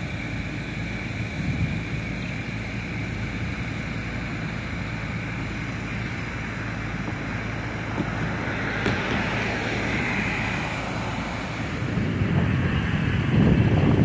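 Wind buffeting the microphone, with a steady rushing noise between gusts and heavier low rumbling gusts at the start and again near the end.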